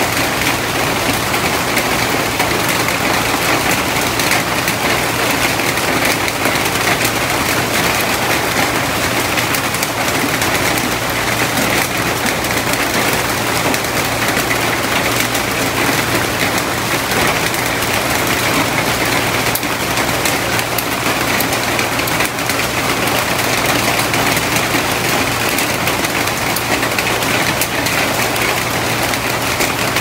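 Steady rain falling on palm and bamboo leaves and the ground, an even hiss of countless drops, with a steady low hum underneath.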